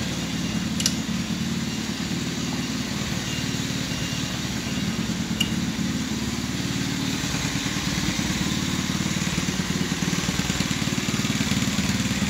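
Kandi go-kart's 110cc single-cylinder gas engine idling steadily, with a fast even low-pitched pulse, freshly started after a rebuild with a new carburetor.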